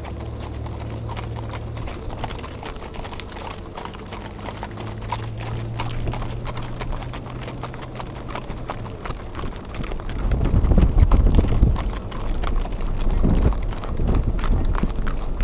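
Hooves of a column of horses clip-clopping at a walk on an asphalt road, many overlapping hoofbeats. A louder low rumble comes up about two-thirds of the way through.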